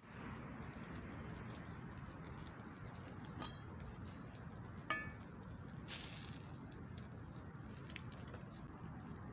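Wood fire burning with a steady hiss and scattered small crackles; a single light metallic clink that rings briefly about five seconds in.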